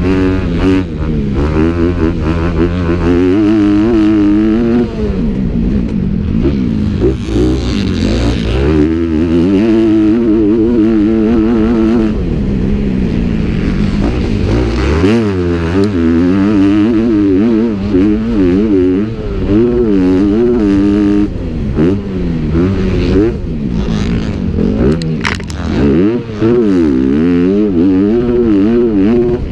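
Motocross dirt bike engines racing, revving up and down over and over as the throttle is opened and shut, with more than one bike heard at once.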